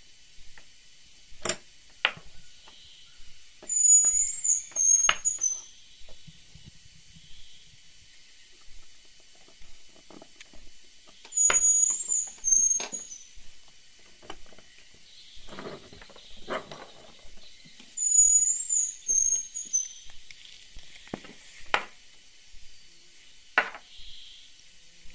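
Bird chirping in short high phrases that come back about every seven seconds; these are the loudest sound. Between them come scattered sharp clicks and knocks of a metal star-crimp die and a hand reloading press being worked on a plastic shotgun shell.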